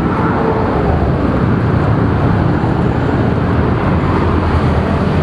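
Steady urban street noise from road traffic, a loud, even low rumble with no distinct events standing out.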